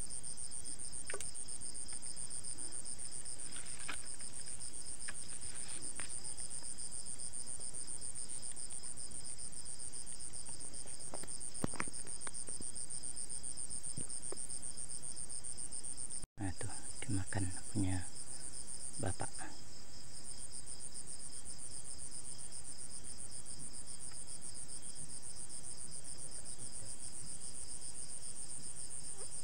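Night chorus of crickets trilling steadily in two high pitches. About halfway through the sound drops out for an instant, followed by a few soft knocks and rustles of handling.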